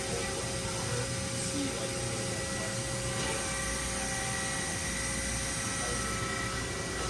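Hydraulic press brake's 15 HP main motor and pump running steadily at idle, a constant hum and hiss with a faint steady whine.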